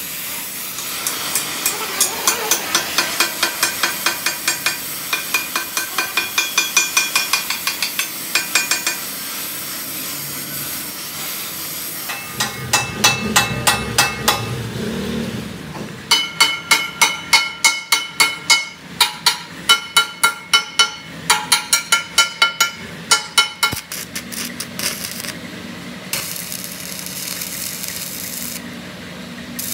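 Hammer striking the steel of a truck front axle in quick, even runs of about three blows a second, each blow ringing. Near the end the blows stop and a steady electric arc-welding crackle takes over.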